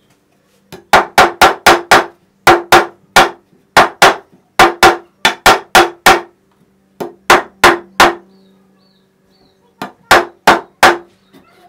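Brass-headed fret hammer tapping a fret wire down into its slot in a guitar fretboard. The taps are sharp and quick, about four a second, in short runs over most of the stretch, then a few more after a brief pause near the end.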